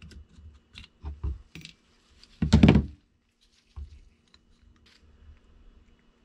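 Small clicks and light metal taps as needle-nose pliers work the float and its pin out of a small carburettor, with one louder knock about two and a half seconds in.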